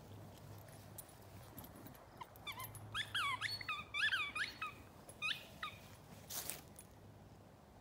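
Dog whining: a run of short, high, rising-and-falling whines over about three seconds, then a brief rustle.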